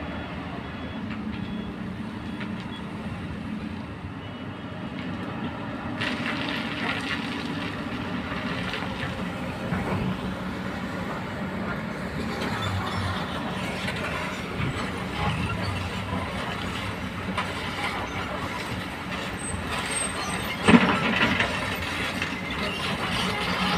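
Excavators' diesel engines running under digging load, a steady low drone with hydraulic work noise that grows busier about six seconds in. Near the end comes one loud sharp bang.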